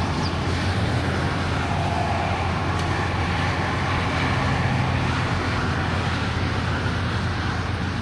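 Truck engine running steadily at a low, even pitch, holding about the same speed throughout.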